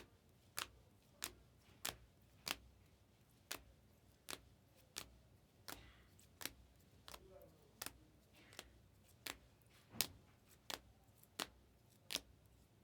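Faint sharp clicks, evenly paced about every two-thirds of a second: trading cards being flicked or snapped down one after another while they are sorted. The loudest click comes about ten seconds in.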